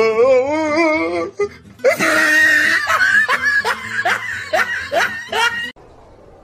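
A person laughing in quick repeated bursts over music, after a short wavering, warbling vocal sound at the start.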